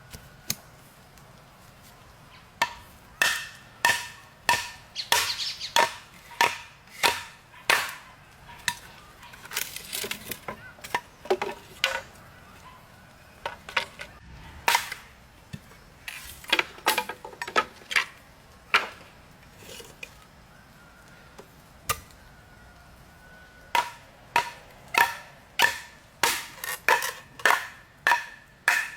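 A blade chopping wood: runs of sharp strikes about one and a half a second, each with a faint ring, broken by short pauses.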